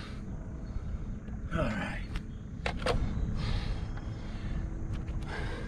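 A man breathing hard, with three heavy puffs of breath about every two seconds, the first with a falling groan, over a low steady rumble. Two sharp clicks close together come near the middle.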